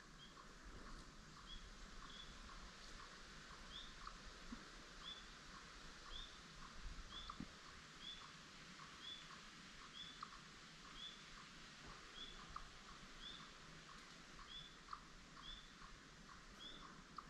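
Near silence apart from a faint, evenly repeated short rising chirp from a small bird or animal, about one and a half calls a second.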